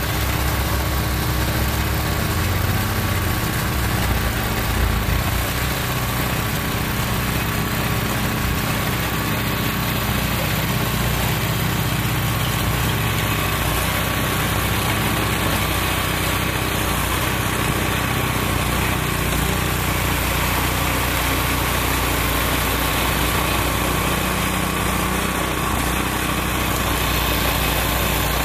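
Walk-behind snowblower's small engine running steadily.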